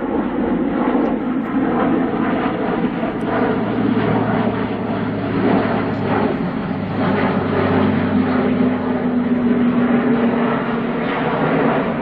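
Airbus A400M Atlas flying past, its four TP400 turboprop engines and eight-bladed propellers making a loud, steady hum with two held low tones.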